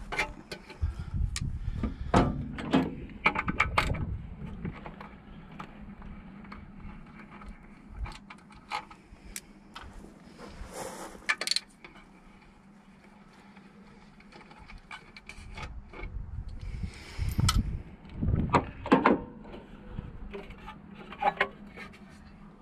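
Hand tools and the air filter housing on a carburettor being worked loose: scattered sharp clicks, knocks, rattles and scrapes of metal and plastic, busiest in the first few seconds and again near the end.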